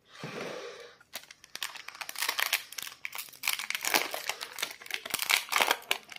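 Foil Yu-Gi-Oh booster pack wrapper crinkling and crackling as it is handled and torn open by hand, after a brief rustle in the first second.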